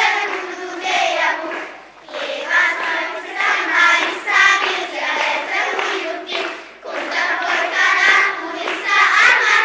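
Children's choir singing together, in phrases with short breaks between them.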